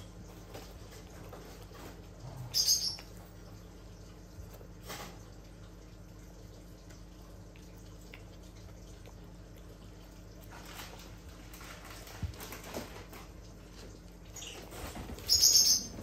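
A senior dachshund eating soft homemade food from a bowl: quiet, irregular wet chewing and lapping. Two brief louder sharp sounds come about three seconds in and near the end.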